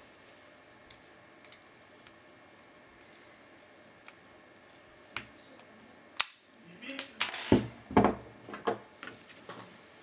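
Small metal clicks of a wire pick working the pins of a cross-keyed (cruciform) padlock. About six seconds in comes one sharp click, then a run of louder metal clinks and knocks as the padlock and picks meet the wooden table.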